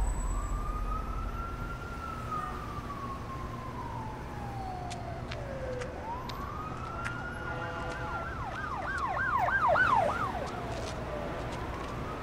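Emergency vehicle siren wailing, its pitch slowly rising and falling, with a low steady rumble underneath. About eight seconds in it switches to a faster yelp of about three sweeps a second, its loudest part, then goes back to the slow wail near the end.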